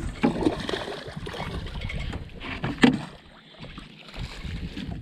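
Wind rumbling on the microphone and water noise around a small fishing boat, with brief handling sounds and a sharp knock about three seconds in.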